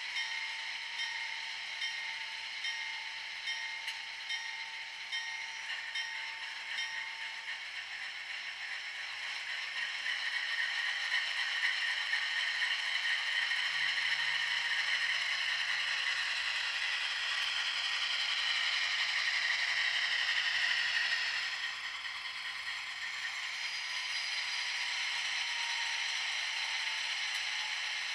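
Diesel locomotive sound from the HO-scale NR class model's ESU LokSound decoder, played through the model's small onboard speaker. The engine sound rises in level about ten seconds in, slides down in pitch and then falls back a little past two-thirds of the way through.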